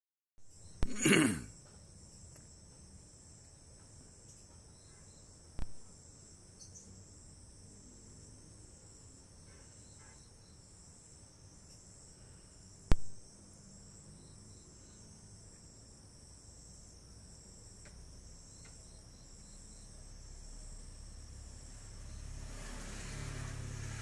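A steady, high insect trill, crickets or similar, with a slight pulse. A few sharp knocks stand out over it: a loud one about a second in, then one around five and a half seconds and one around thirteen seconds. A low rumble builds near the end.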